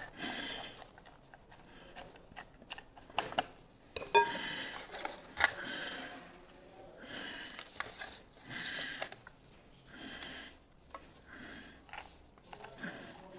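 Shredded cabbage being tamped down hard in a glass jar: repeated wet crunching squelches about every second or so, as the pressing draws the brine up over the cabbage. A few sharp knocks come about four to six seconds in.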